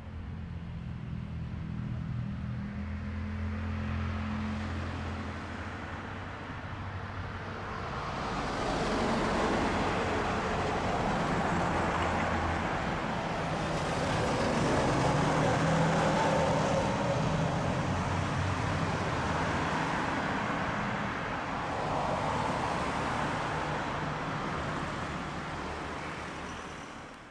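Road traffic: a vehicle engine idling steadily, then from about a third of the way in vehicles driving past, the tyre and engine noise swelling and fading in waves.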